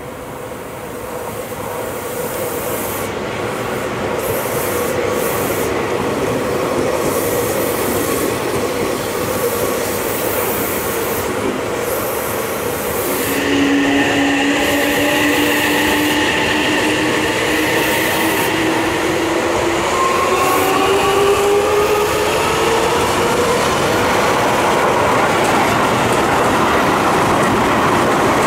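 Seibu Ikebukuro Line electric commuter trains passing close by, their wheels running on the rails. The noise builds over the first few seconds, and from about halfway the whine of the traction motors climbs steadily in pitch as a train accelerates.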